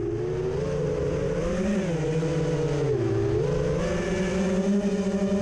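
Drone's motors and propellers humming in flight, the pitch wavering, dipping about three seconds in, then rising and holding steady.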